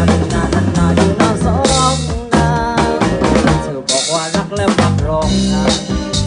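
Band music with a full drum kit, bass drum and snare beating steadily under pitched melody lines, with two loud hissy crashes in the middle.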